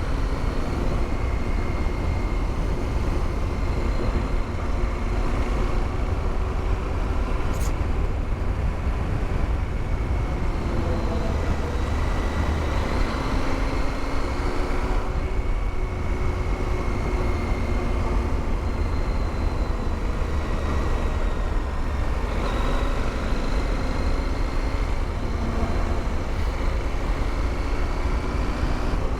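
KTM motorcycle engine pulling along a winding road, its revs rising and falling slowly with the bends, over a steady rush of wind noise from riding.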